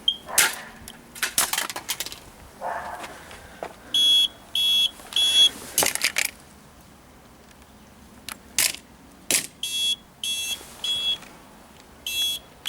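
Hammer blows knocking sharply against a smoke alarm's plastic casing, with a scrape between them. The alarm keeps sounding its high-pitched beep in groups of three, each group lasting under two seconds, coming back three times.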